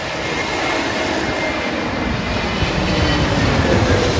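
Twin-engine jet airliner on landing approach passing low overhead, its engine roar building steadily louder, with a faint whine that slides slightly lower as it goes over.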